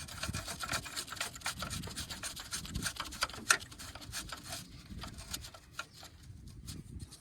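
Hard parts being handled and worked into place during a car battery installation: irregular scraping and rubbing with many small clicks, busiest over the first four seconds or so, then sparser.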